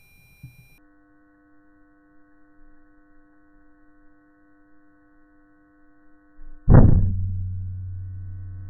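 A steady electronic drone tone, then about seven seconds in a single sudden deep boom that dies away slowly into a low hum.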